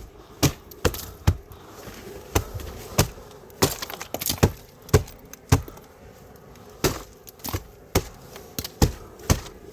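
Small pieces of thick ice cracking and breaking off: a string of sharp, irregular cracks and knocks, about two a second.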